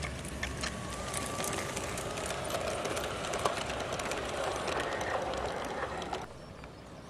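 LGB garden-scale model of a Harz narrow-gauge steam locomotive with its coaches running past close by on brass track: a steady running rattle with scattered clicks of wheels over the rails, growing louder as the train comes near. It drops away suddenly about six seconds in as the last coach passes.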